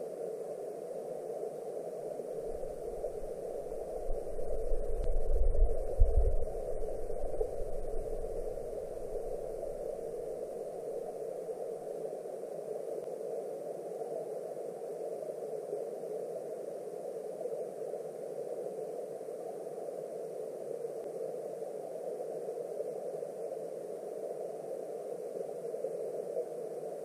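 Muffled, steady rush of flowing stream water, heard through an underwater camera housing. Between about three and seven seconds in a low rumble swells, with a thump about six seconds in.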